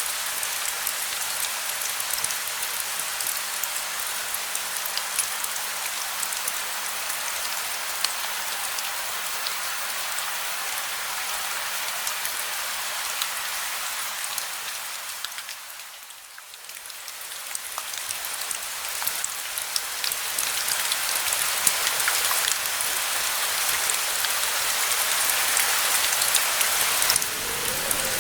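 Steady rain, a dense hiss of falling water with individual drops ticking through it. It fades down briefly about halfway, then swells back up a little heavier.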